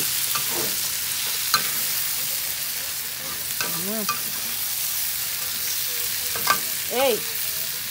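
Oil sizzling steadily as dried anchovies, shallots, chillies and tomato are stir-fried in a small cast-iron wok, with a metal spatula now and then scraping and clicking against the pan.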